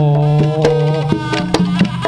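Live Javanese jaranan music: sharp hand-drum strokes, typical of kendang drums, over a held, pitched melody line.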